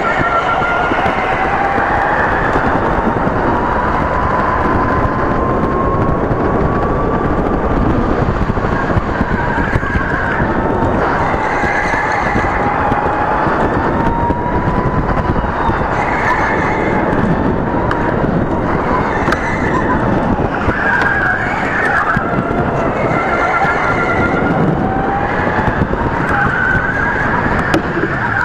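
Electric racing kart's motor whining, its pitch rising and falling with speed, over a steady rumble, with short tyre squeals through the corners.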